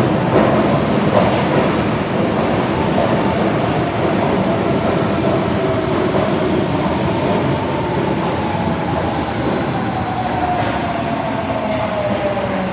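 Osaka Metro Tanimachi Line subway train running into the platform: steady rolling noise of wheels on rail, with a motor whine that falls slowly in pitch over the last few seconds as the train slows.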